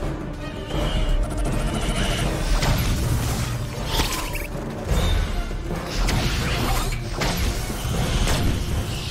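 Film action soundtrack: a dramatic music score mixed with a dense run of crashes, impacts and weapon effects from a fight, with sharp hits every second or so.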